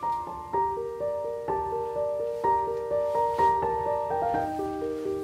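Background piano music: a melody of ringing notes over lower sustained notes.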